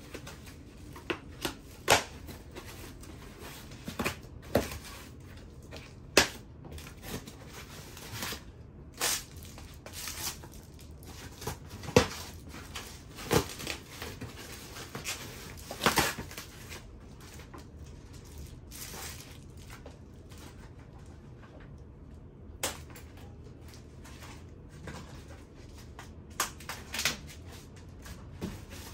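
Irregular clicks, knocks and crinkling from unwrapping the packaging and handling the parts of a newly unboxed electric bike.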